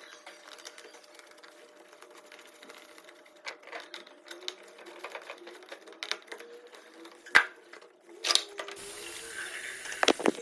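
Small clicks and knocks of sink-trap parts being handled and fitted, with a sharp knock about seven seconds in. Near the end a tap is turned on and water runs steadily into the sink, testing the new trap.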